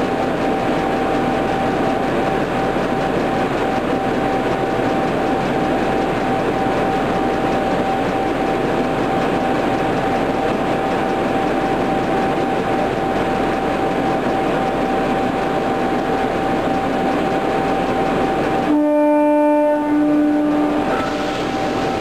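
Steady running noise of a stationary Milan M1 metro train with a thin steady whine. About 19 seconds in, a horn sounds for about two seconds, louder than the rest.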